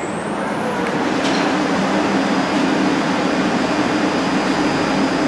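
R62A subway train standing at the platform with its doors open, its onboard equipment giving a steady hum and hiss. A high rising electric whine fades out about a second in.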